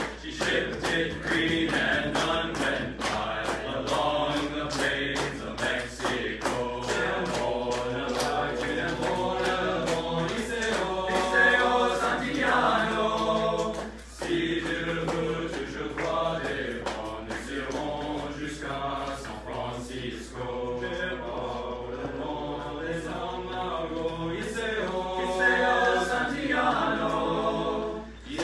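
A male choir of about a dozen seminarians singing a cappella in several parts, with a short break between phrases about halfway through.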